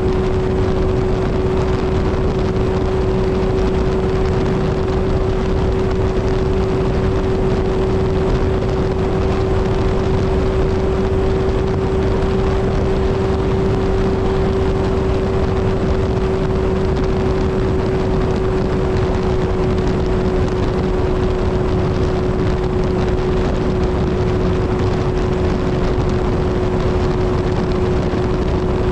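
Kawasaki Z1000 inline-four motorcycle engine and exhaust cruising at steady highway speed, a constant engine drone over a rush of wind, easing off slightly near the end.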